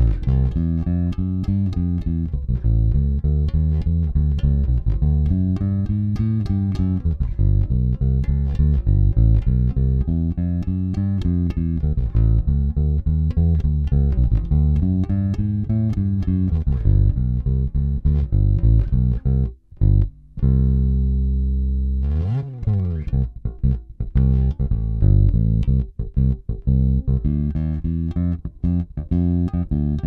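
Squier Vintage Modified Jaguar Bass Special electric bass played fingerstyle on its neck P-bass pickup alone: a busy, continuous run of notes with a short break about two-thirds of the way through.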